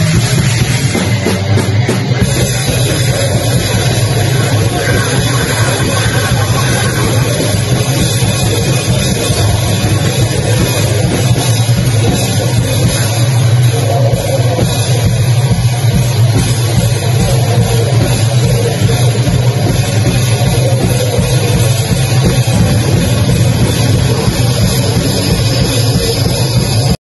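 Live heavy rock band playing loud: distorted electric guitar and fast, pounding drum kit, with a vocalist shouting into the microphone.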